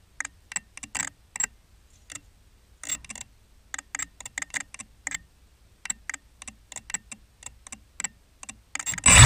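Irregular light ticking and clicking while an FPV racing quadcopter sits on the ground, then near the end its brushless motors spin up with a sudden loud, rising whine for take-off.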